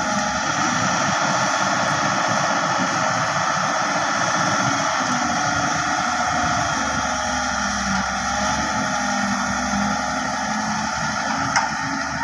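Wheeled excavator's diesel engine running steadily under load as the arm digs and lifts a bucket of wet clay, with a faint wavering whine over the engine noise.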